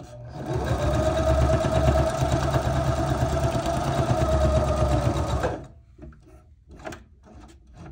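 Electric sewing machine stitching through layered paper playing cards, running steadily for about five seconds, then stopping. A few light clicks follow.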